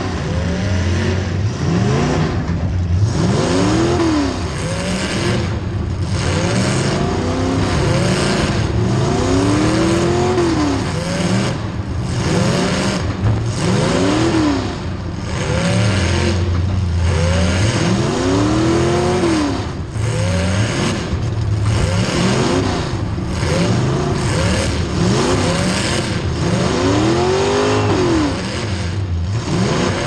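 Demolition derby car engine heard from inside the stripped cab, revving up and falling back again and again every few seconds as the driver shifts and pushes the car around.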